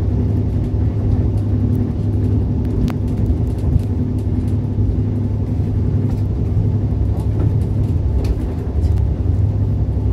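Running noise of a Korail RDC diesel railcar under way, heard from inside the passenger cabin: a steady, loud low rumble from the engine and the wheels on the rails, with a few faint clicks.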